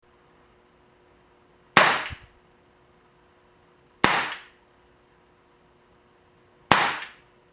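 Gletcher Tokarev TT-NBB CO2 BB pistol firing three shots about two to two and a half seconds apart, each a sharp crack that dies away quickly.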